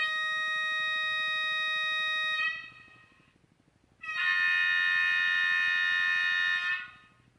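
Sound decoder in a BEMO HO-scale model locomotive playing its horn through the model's small speaker: two long, steady blasts. The second, starting about four seconds in, is louder and fuller than the first.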